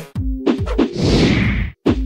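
Electronic outro music: a few heavy drum hits and a falling whoosh sweep about halfway through. The guitar-rock background music cuts off at the start.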